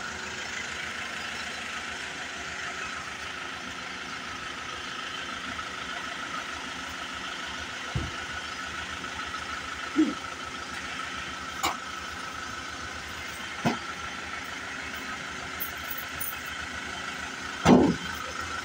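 Isuzu Traviz diesel engine idling steadily, with a new clutch lining and pressure plate fitted, under a steady high whine. A few sharp knocks come over it; the loudest is near the end.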